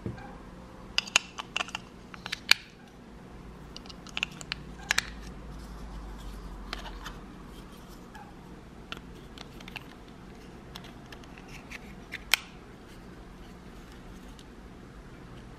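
Sharp plastic clicks and taps as AA batteries are pressed into a black plastic two-AA battery holder against its spring contacts and the holder's cover is fitted. The clicks come in clusters early on, then sparser, with one louder click near the end.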